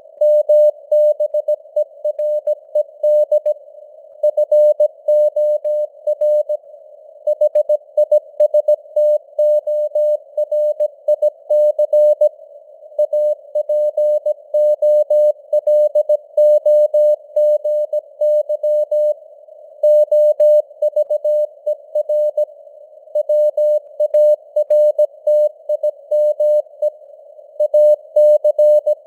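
Morse code (CW) at about 17 words per minute: a single steady tone near 600 Hz keyed in dots and dashes, with short gaps between characters and words. It is heard over a narrow band of simulated receiver hiss that stays on between the elements.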